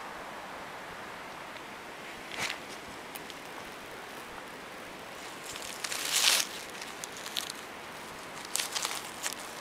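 Dry leaf litter rustling and crackling as a hand brushes it away from a mushroom, in short bouts: briefly about two seconds in, loudest around six seconds, and several times near the end, over a steady outdoor hiss.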